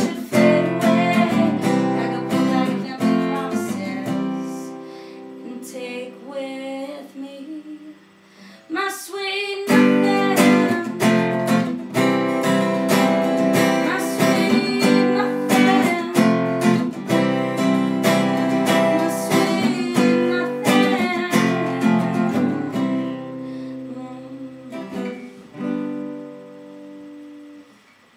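Acoustic guitar strummed and picked. It plays lighter from about four to nine seconds in, comes back to full strumming around ten seconds, then tapers off as the song comes to its end.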